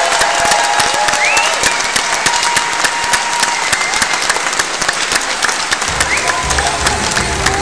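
Audience applauding, with a few short whoops. Music with a strong bass starts up about six seconds in.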